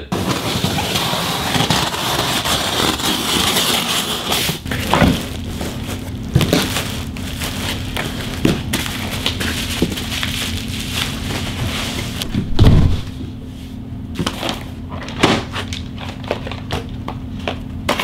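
Unpacking a flat-packed metal server rack: cardboard flaps and packing tape rustling, bubble wrap and plastic bags crackling as the wrapped steel rails are handled, with scattered light knocks and one loud thump about two-thirds of the way through.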